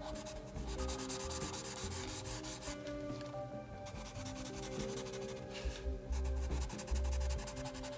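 Sharpie marker scratching and rubbing across paper in repeated strokes as lines are gone over to darken them, with soft background music underneath.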